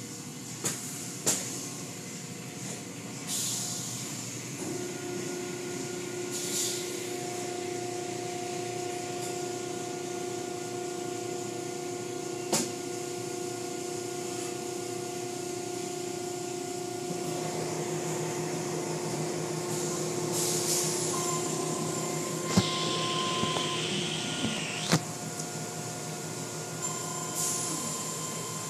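Automatic tunnel car wash heard from inside the car: a steady hum of the wash machinery with a few held tones that shift, water spray hissing against the glass in waves, and rotating brushes and cloth strips slapping the car with several sharp knocks.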